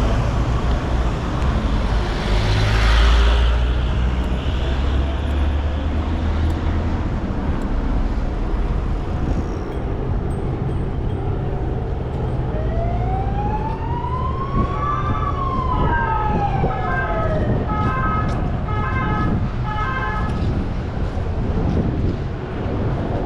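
Road traffic running steadily, with a heavy vehicle passing a couple of seconds in. About halfway through an emergency vehicle siren sounds one slow wail, rising then falling, then switches to a fast alternating two-tone yelp for a few seconds before stopping.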